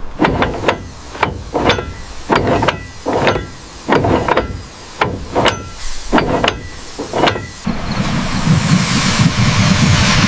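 A run of sharp metallic clanks, each ringing briefly, about two a second. About eight seconds in they stop, and a steady loud hiss with a low rumble takes over.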